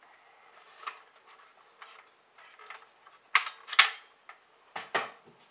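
Sharp plastic-and-metal clicks and clacks of a CM 023 airsoft gun being handled, with its parts snapping into place. There is a light click about a second in, two loud clacks about three and a half seconds in, and two more near the end.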